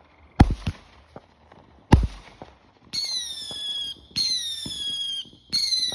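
Fireworks going off: two loud bangs, then a run of shrieking whistles, each about a second long and falling slightly in pitch, one after another with small pops beneath.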